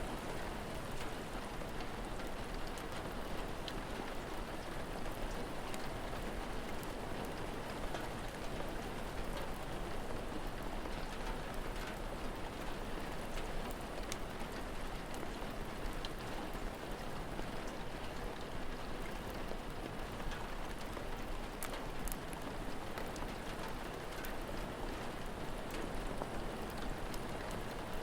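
Steady rain falling, with scattered sharp pops and crackles of a wood fire.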